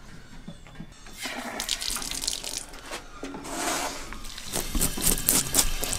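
Water running from a tap into a sink, getting louder about a second in, with light knocks and clatter near the end.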